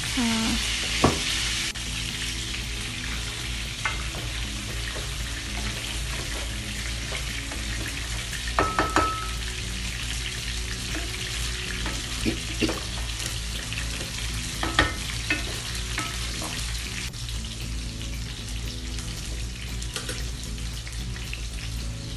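Chicken pieces sizzling steadily as they fry in oil in a frying pan, with scattered sharp clicks and knocks of metal tongs and a wooden spoon against the pan and pot.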